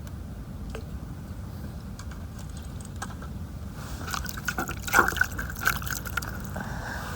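Small splashes and drips of water, bunched together over about two seconds starting a little past halfway, over a low steady background.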